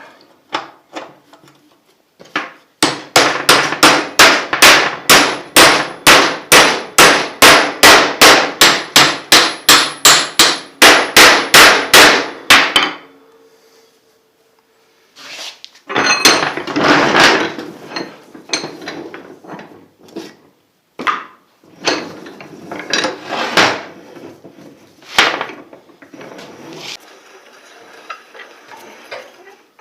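A hammer striking steel during reassembly of a blacksmith's post vise: a steady run of about thirty ringing blows, about three a second, for some ten seconds. After a short pause come irregular metal clanks and rattles as the parts are handled.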